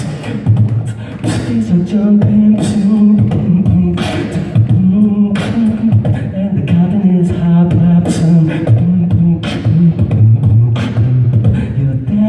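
Solo beatboxing through a handheld microphone: a hummed, pitched bass line under a steady beat of sharp snare-like hits, one about every 1.4 seconds.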